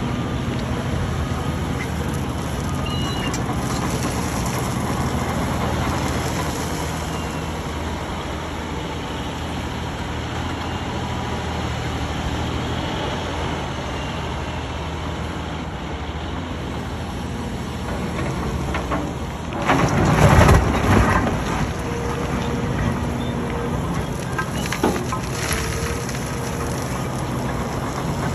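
Cat 349E-based long-reach excavator running steadily while it works its boom and bucket in gravel. A loud rough burst of noise comes about two-thirds of the way through.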